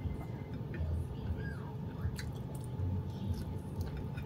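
Close-up chewing and biting of raw leafy greens, with wet mouth sounds and small irregular clicks.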